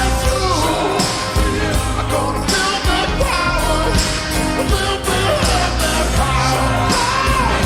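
Slowed-down, reverb-drenched rock song with a steady beat, bass and a sung vocal line over the band.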